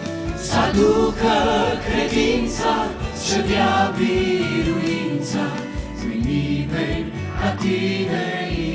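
Mixed male and female vocal group singing a Romanian Christian worship song in harmony into microphones, over a steady low accompaniment.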